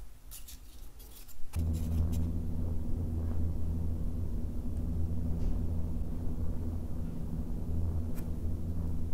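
Noctua NF-A14 PWM 140 mm computer fan, powered from USB, starting up about a second and a half in after a few light clicks, then running steadily with a low hum and a rush of air blowing straight into the microphone's windscreen.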